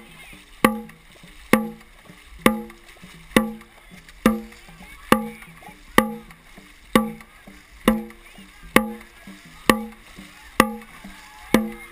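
Dragon boat drum beaten at a steady pace, a bit faster than once a second, each beat ringing briefly with a low tone. It marks the paddlers' stroke rate. Water rushes and paddles splash beneath it.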